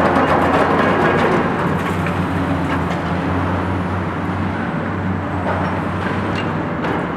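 Diesel engines of Cat high-reach demolition excavators running steadily, with scattered small knocks and cracks from the attachments working at the concrete and steel structure.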